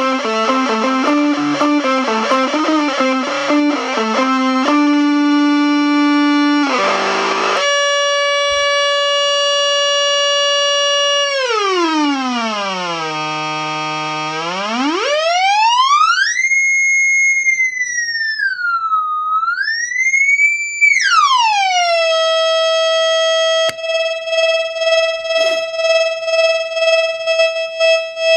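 Electric guitar notes played through the Unreachable Void noise-machine pedal's distortion and reverb. These give way to a held tone from the pedal that sweeps smoothly down, up high, wavers and settles as its knobs are turned. Near the end the steady tone pulses with the pedal's tremolo.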